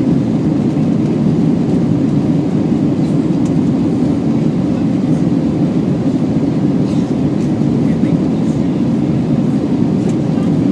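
Steady low cabin noise inside an Airbus A320 airliner climbing after takeoff: the jet engines and the air rushing past the fuselage make an even hum that holds level throughout.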